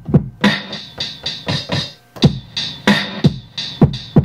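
Boom-bap hip-hop drums triggered from a Native Instruments Maschine MK3: deep kicks that drop in pitch, with snare hits and hi-hats, in a loose beat that breaks off briefly about two seconds in.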